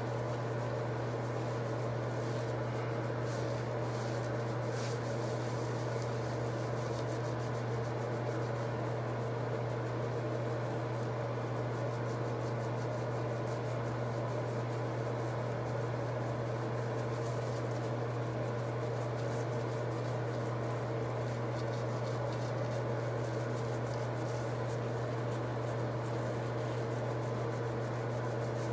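Fingertips rubbing and massaging shampoo lather into wet hair and scalp, with soft squishing, over a steady low hum.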